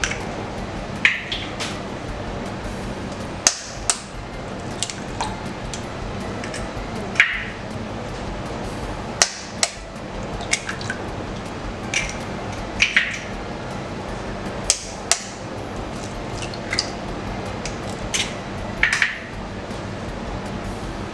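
Eggs being cracked into a bowl one after another: many sharp taps of eggshell against the bowl, some with a short ring, scattered irregularly over a steady background hiss.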